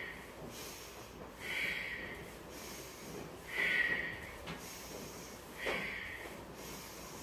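A woman breathing forcefully in a steady rhythm through a seated spinal-flex exercise, about one breath cycle every two seconds. A louder breath alternates with a softer one, each in time with the torso rocking forward and back.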